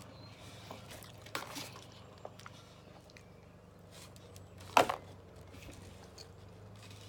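Sticky, wet clicks and smacks of honeycomb being pulled apart and chewed, with one sharper click a little under five seconds in. A steady low hum runs underneath.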